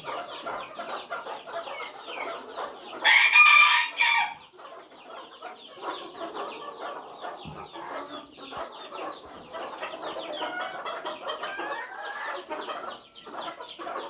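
A flock of Cochin chickens clucking and chattering continuously, with one loud, drawn-out call, crow-like, lasting about a second, around three seconds in.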